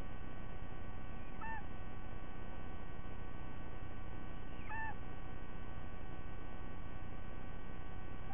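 Young sea eagle giving two short squealing calls about three seconds apart, each rising then dipping in pitch, over a steady background hum.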